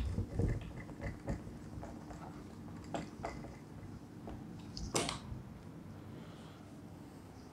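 A handheld duster wiping a whiteboard, with a few light knocks and one sharper knock about five seconds in.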